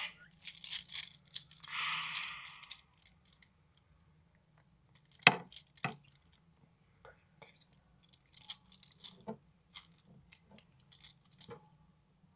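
A handful of plastic-handled makeup brushes being handled and clattered together, with small clicks as the handles knock against each other and two sharp knocks about five and six seconds in. There is brief rustling in the first few seconds.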